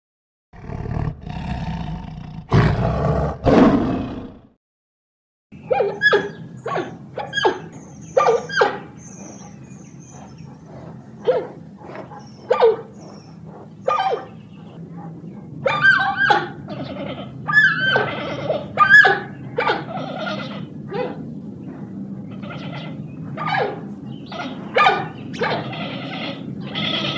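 Lions roaring in the first few seconds. After a second of silence, giant panda cubs give a long run of short, high-pitched calls.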